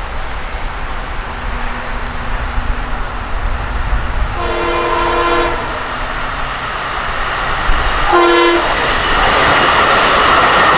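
Long Island Rail Road M3 electric multiple-unit train sounding its horn for a grade crossing: one long blast about four seconds in and a short one about eight seconds in, part of the crossing signal. Under it runs a steady low rumble, and the rail and wheel noise of the approaching train grows loudest near the end.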